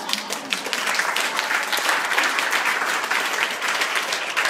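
A small group of people applauding, with many hands clapping at once.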